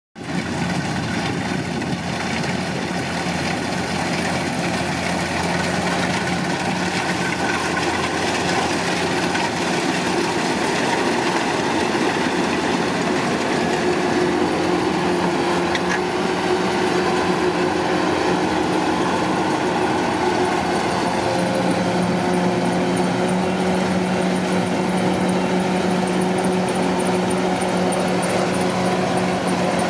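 Kubota DC-105 combine harvester running steadily at work in a rice field, its diesel engine and threshing machinery making a constant drone with a steady hum; a second, higher hum joins about halfway through.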